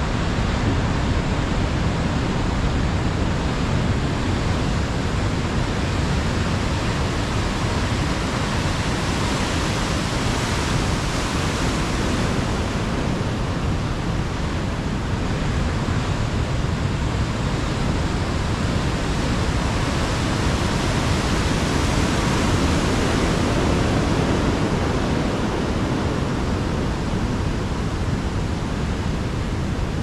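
Steady rain together with ocean surf, a dense even rushing hiss that swells a little twice as waves wash in.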